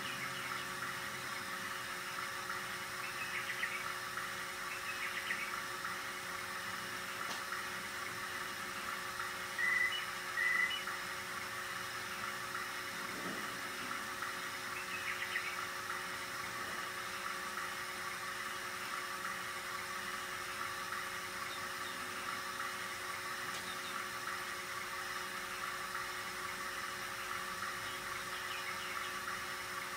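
RCA 3700F cassette deck transport running: a steady whir from the capstan motor, belt and flywheels, with a few faint steady hum tones under it. About ten seconds in come two short high beeps, about a second apart, the loudest sounds in the stretch.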